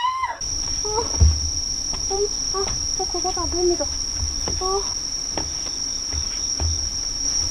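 Steady, high-pitched chirring of night insects, with a few short startled cries from a woman and several low thumps as she jumps up, startled by a cicada.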